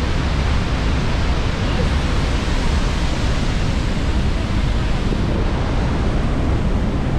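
Steady rushing of Niagara's Horseshoe Falls at close range: an even, deep wash of falling water and spray, with wind buffeting the microphone.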